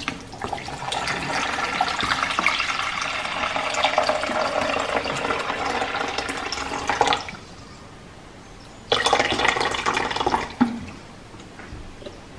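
Water poured from a filter jug into a drip coffee maker's water tank, running steadily for about seven seconds. After a short pause comes a second, shorter burst of sound.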